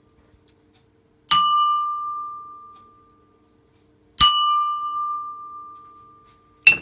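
A kitchen bowl struck with a pestle, ringing like a small bell. Two strikes about three seconds apart each give a clear tone that fades over about two seconds. A quick double clink comes near the end.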